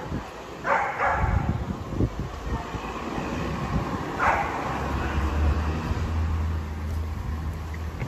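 Street traffic: a motor vehicle's engine rumbles by, running low and steady through the second half, with two short sharp sounds, one about a second in and one about four seconds in.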